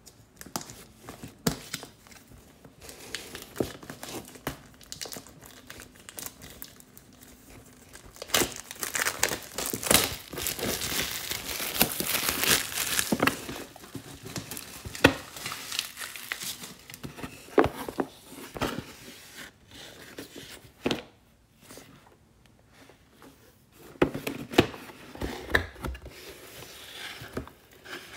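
A cardboard box being opened and unpacked by hand: packaging rustling and crinkling, with sharp knocks and clicks as it is handled. The crinkling is densest and loudest around the middle.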